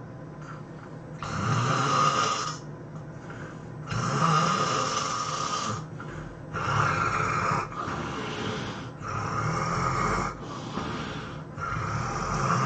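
Heavy snoring from a sleeping person: loud snores about every two and a half seconds, five in all, with quieter breathing between them.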